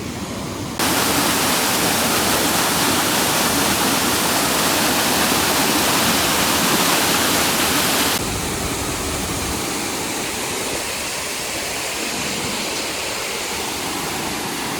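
Waterfall rushing: a steady, even rush of falling water. It jumps louder and brighter about a second in and drops back to a softer rush about eight seconds in.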